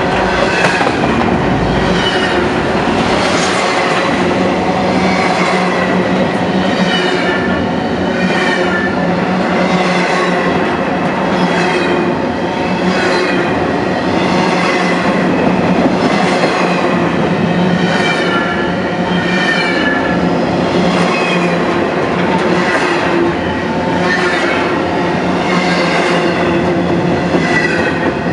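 Railroad cars of a train rolling past on the rails: a steady rumble and clatter of wheels with wavering squeals from the wheels about every second.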